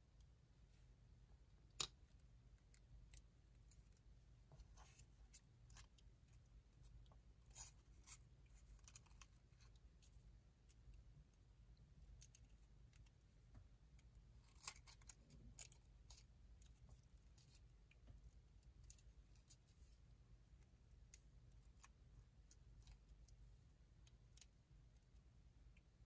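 Faint handling of origami paper: light rustles and crinkles of the paper pieces between the fingers, with a few scattered sharp clicks, the sharpest about two seconds in and another near the middle.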